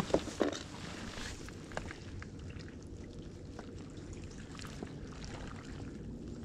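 Water washing and lapping around a small kayak-style fishing boat, a steady wash with a few sharp knocks in the first half second and scattered small clicks after.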